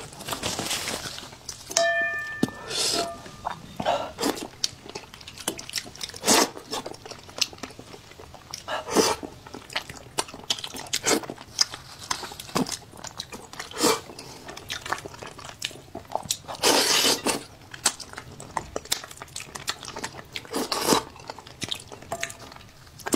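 Close-miked eating of braised fish in sauce: wet chewing, lip smacks and repeated slurps and sucks, with a longer slurp every few seconds.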